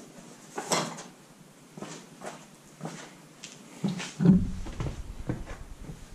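Workshop handling noises: a string of separate clicks and knocks as tools or parts are picked up and set down. About four seconds in comes a heavier thump followed by a short low rumble.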